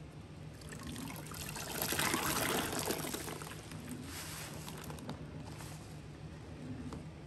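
Liquid bleach pouring and trickling into a container, swelling about two seconds in, then thinning to a dribble.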